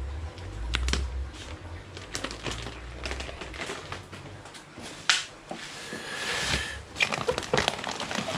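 Plastic fish-transport bags and packing being handled: irregular crinkling, rustling and small knocks.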